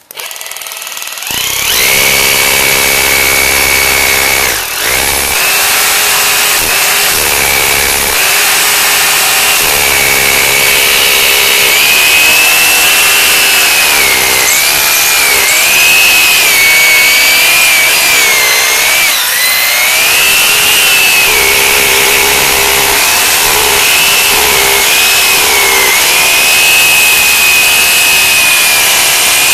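Electric drill boring down into a load-bearing wall's footing. It starts up at once and runs without a break, its motor whine sagging and recovering again and again as the bit bites under load.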